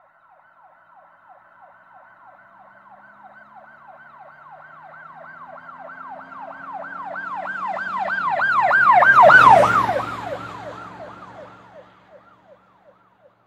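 Emergency-vehicle siren in a rapid yelp, about four rising-and-falling cycles a second, drawing closer and louder, passing loudest about nine seconds in with a rush of vehicle noise, then fading into the distance.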